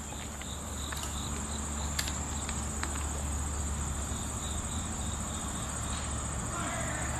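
Steady high-pitched chorus of summer insects, over a low steady hum.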